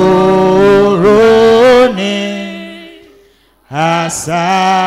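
A man singing a slow worship chant in long held notes: one phrase that ends about two seconds in and fades away, then the next line beginning near the end.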